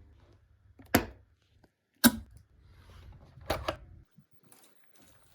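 Handling noise: three sharp taps or knocks, about one, two and three and a half seconds in, with low rumbling between them, then quiet.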